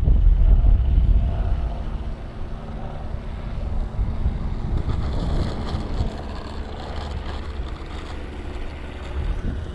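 Wind buffeting the microphone, loudest in the first second or two. Under it is the faint sound of an electric radio-controlled model Cessna touching down and rolling out on an asphalt runway, with a light hiss from about five seconds in.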